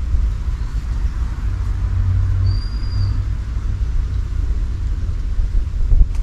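Wind buffeting the microphone: a low, gusting rumble, with one short high whistled note about two and a half seconds in.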